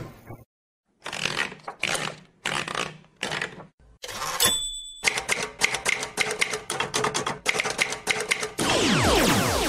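Manual typewriter typing in short bursts of keystrokes, a single bell ding about halfway through, then a fast unbroken run of keystrokes. Near the end a louder hissing sound with falling sweeps takes over.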